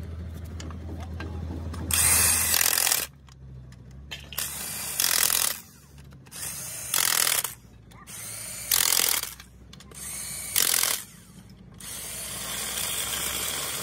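Electric impact wrench hammering on gearbox housing bolts in five short bursts, each half a second to a second long, with pauses between them.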